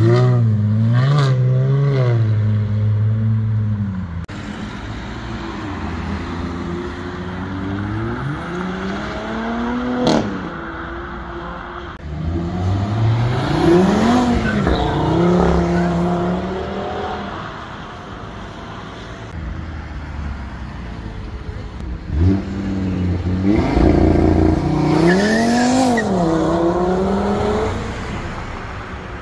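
Several performance cars accelerating hard one after another, including a Mercedes-AMG roadster and an Audi hatchback: each engine note climbs in pitch, drops at gear changes and climbs again. Two sharp cracks stand out, about ten seconds in and again just after twenty seconds.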